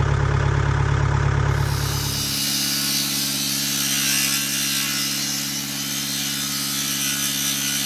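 Engine idling: a deep, steady rumble for about the first two seconds, which then gives way to a steadier, higher hum under a broad hiss.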